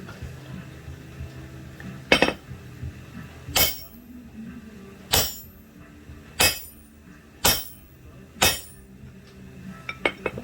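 Hammer blows on steel: six heavy, ringing strikes about one to one and a half seconds apart, then a few lighter taps near the end.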